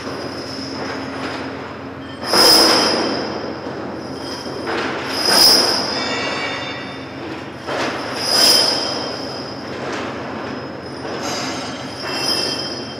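High-pitched metallic squealing from machinery over a steady low hum, swelling louder four times, about every three seconds.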